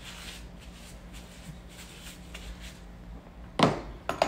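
Hands handling a plastic tub and the metal build plate sitting in it: a few sharp knocks and clatters near the end, after a stretch of faint, steady room hum.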